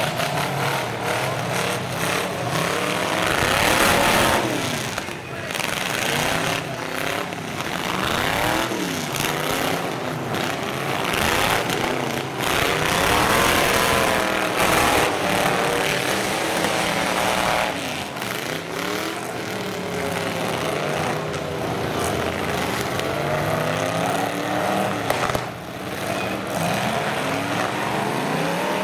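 Engines of full-size demolition derby pickup trucks revving up and down as the trucks push and ram each other, several engines at once rising and falling in pitch, with sudden bangs of metal hitting metal now and then.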